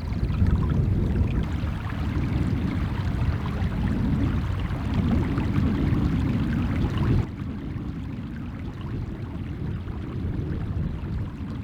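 Steady rush of running water. About seven seconds in it drops suddenly to a quieter, duller rush.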